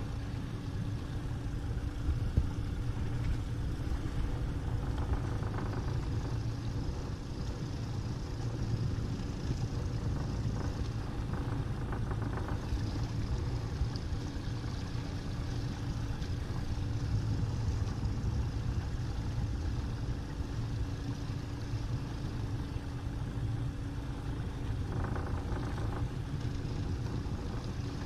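Honda 90 four-stroke outboard motor running steadily at low trolling speed, a constant hum over the rush of water and wind.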